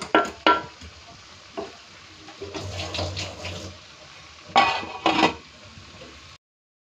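A metal spoon clinks against an aluminium pot while stirring a simmering curry, then two loud metallic clanks come about a second apart near the end as the aluminium lid is put on the pot. Then the sound cuts off.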